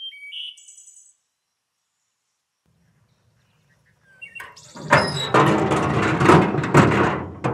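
A few short bird chirps, then, about halfway through, the heavy steel lid of a trailer-mounted barrel smoker being lifted open: a loud, rasping metal creak and grate with several stronger surges.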